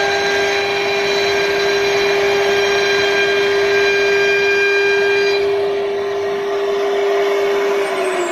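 CNC router spindle motor running at a steady high speed with a loud, even whine. Near the end its pitch starts to drop as the spindle begins to spin down.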